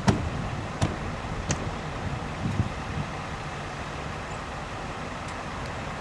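Steady low hum of idling vehicles in a stopped line of traffic. A few sharp clicks fall in the first two seconds, with softer knocks around the third second.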